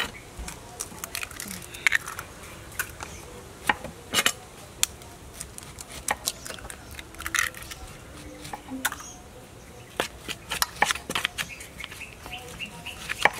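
Metal spoon clinking and scraping against a stainless steel mixing bowl while flour is stirred with an egg, giving scattered sharp clicks and taps.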